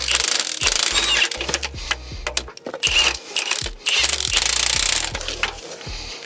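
Background music with a kick-drum beat and a deep, stepping bass line.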